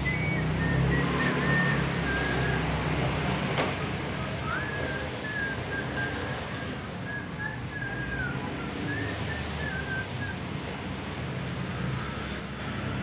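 Steady low rumble of background traffic, with a thin whistled tone wavering up and down in pitch and breaking off and on through it.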